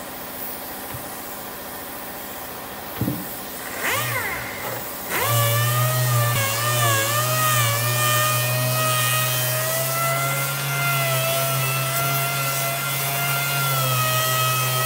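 Air-powered orbital sander sanding the plywood top of a speaker cabinet, a steady whine whose pitch dips a little as it is pressed onto the wood. It gives a short burst about four seconds in, then runs steadily from about five seconds on.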